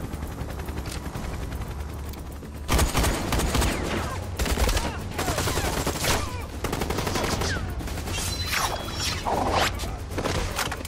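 Rapid automatic rifle fire from several guns at once, breaking out suddenly about three seconds in and going on in dense volleys over a steady low rumble.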